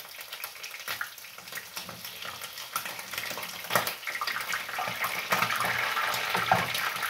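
Boiled meat sizzling in hot oil in a frying pan, with scattered clicks and scrapes of a knife against the meat and pan. The sizzle grows louder about halfway through.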